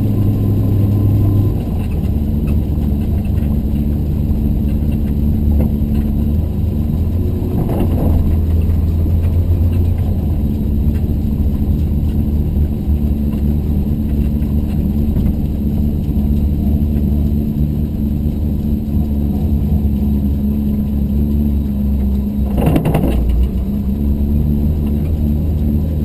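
Porsche 928's V8 engine running hard at racing speed, heard from inside the cabin. Its note changes abruptly a few times, with brief rushes of noise about eight and twenty-three seconds in.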